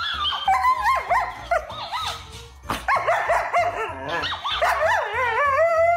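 Siberian husky howling and 'talking' in a run of long wavering yowls that slide up and down in pitch. Background music with a steady beat plays underneath.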